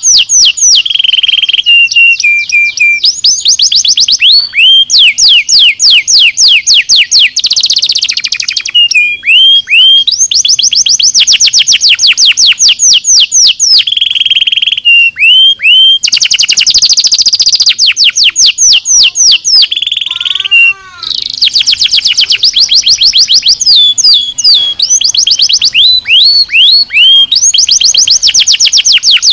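Domestic canary singing continuously in fast rolling trills of repeated high, down-sweeping notes. Just after two-thirds of the way through, it gives a short, quieter phrase of slower, lower notes.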